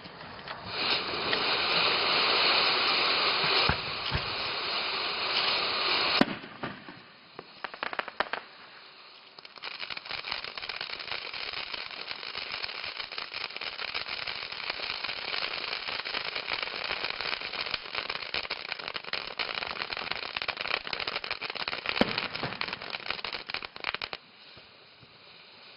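Firefly Surprise flashing fountain firework burning: a loud dense hissing spray, then a lull of a few scattered cracks, then a long stretch of dense crackling that drops to a weaker hiss near the end.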